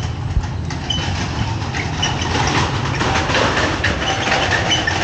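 Busy street-market background noise: a steady low rumble of engines and traffic with scattered clicks and clatter. It thickens about halfway through.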